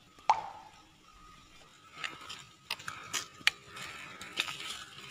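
Hand sanitizer squirted from a squeeze bottle into cupped hands, a short plop just after the start, followed by irregular crackling and rustling.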